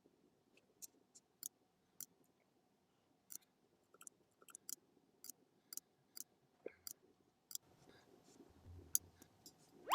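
Faint, irregular sharp clicks and taps, about fifteen in all, from small plastic cosmetics packaging being handled, with a low rustle of handling near the end.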